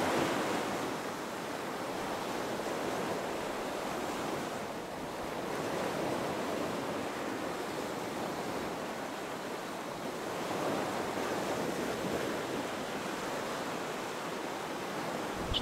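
Steady rushing noise of wind and water, swelling and easing every few seconds, with no distinct knocks or tones.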